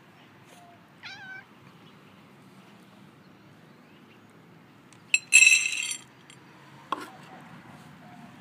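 A tortoiseshell feral cat gives one short meow about a second in. Around five seconds in comes a brief loud clatter, the loudest sound, and a sharp knock follows about seven seconds in.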